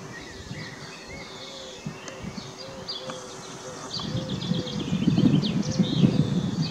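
Small songbirds chirping and twittering in quick short notes, with a low wind rumble on the microphone that grows louder about four seconds in.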